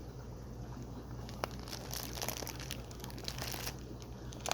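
Plastic fish shipping bag crinkling and rustling as it is handled, with a few sharp clicks; the rustling is thickest from about two seconds in.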